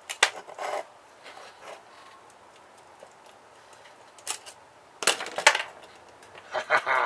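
Stripped printer parts being handled on a work table: a few sharp clicks and knocks with a short scrape near the start, a cluster of clattering knocks about five seconds in, and rubbing near the end.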